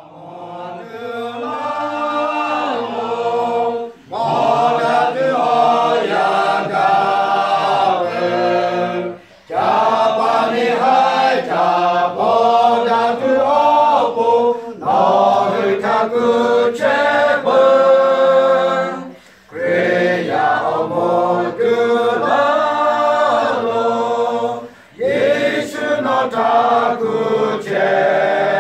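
Choir singing, apparently without accompaniment, in long phrases of about five seconds, each broken by a brief pause. It fades in at the start.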